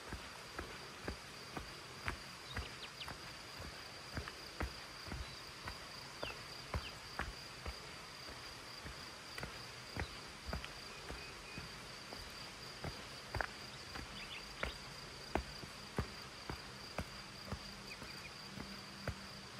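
Footsteps walking on a dirt forest trail, about two steps a second, over a steady high-pitched insect drone.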